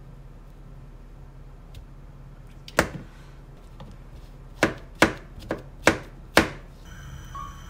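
Chef's knife chopping button mushrooms on a cutting board. One chop comes about three seconds in, then a quick run of five chops near the end.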